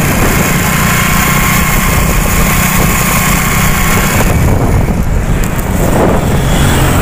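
Motorcycle in motion, with wind rushing hard over the microphone and the engine running underneath. A faint steady whine sits in the noise for the first four seconds or so.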